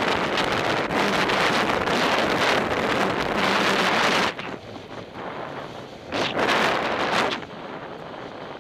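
Wind buffeting the microphone of a camera on a road bicycle ridden at racing speed, loud and steady. It drops abruptly about four seconds in to a quieter rush, then swells again briefly a couple of seconds later.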